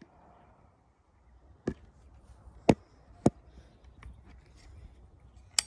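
Four short, sharp clicks spread over a few seconds, the loudest two about half a second apart near the middle, with a few fainter ticks between them.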